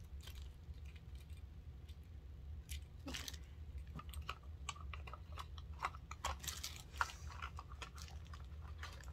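Clear plastic wrapping crinkling and rustling in irregular crackles as a small sewing-machine accessory is handled and unwrapped, over a low steady hum.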